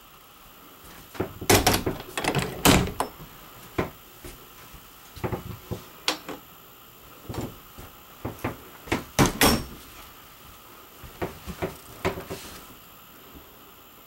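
Interior doors and cabinet doors of a fifth-wheel camper being opened and shut: a run of knocks and clunks, loudest a couple of seconds in and again about nine seconds in.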